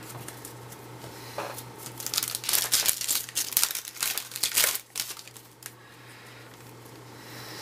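Foil baseball card pack wrapper being torn open and crinkled by hand, a run of rustling and crackling for a few seconds that dies down near the end.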